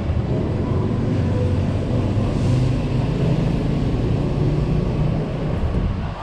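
Street traffic with a motor vehicle's engine running close by: a low rumble that swells in the middle and drops off near the end.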